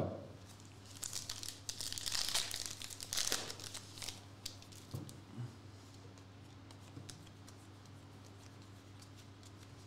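Foil trading-card pack crinkling and tearing open for about two and a half seconds starting a second in, then a few faint ticks as the cards inside are handled, over a low steady hum.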